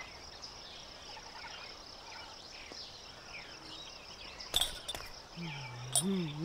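Nature ambience of an insect chorus, a steady high trill like crickets, with many short bird chirps over it. Near the end come a few sharp clicks and then a low voice sound, rising and falling in pitch.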